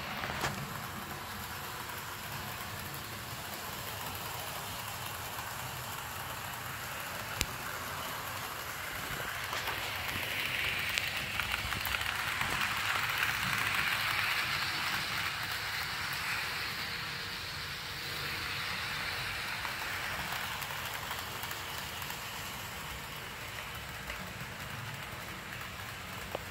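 HO scale model diesel locomotive running on the layout track, a steady whir and rattle of its electric motor and wheels rolling on the rails. It gets louder for several seconds around the middle as it passes close by, with a couple of single clicks.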